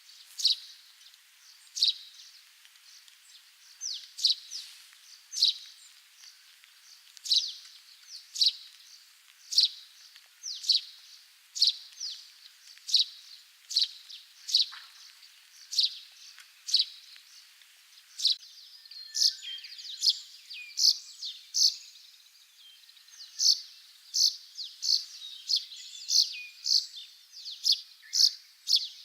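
Russet sparrow (Passer rutilans) song: a series of short, sharp chirps, repeated about once a second and coming faster in the second half.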